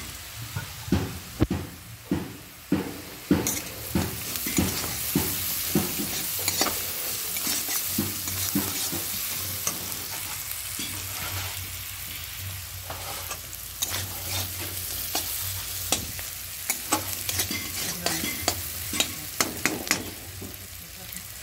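Sliced onions sizzling in hot oil in a metal kadai, with a spatula scraping and knocking against the pan as they are stirred. There are runs of quick strokes in the first half and again towards the end, and the sizzle goes on under them throughout.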